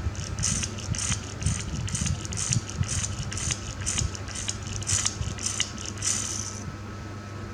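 Small toy cars clicking and rattling as they are handled, in quick irregular bursts that stop about a second before the end, over a steady low hum.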